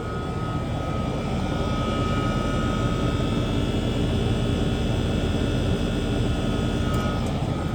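Small outdoor air conditioner condensing unit running: its GE condenser fan motor turning the fan with a steady whoosh of air over a low hum, and a thin steady whine on top.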